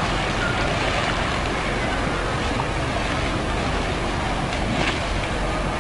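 Steady rushing noise, even and unbroken, with no clear tone.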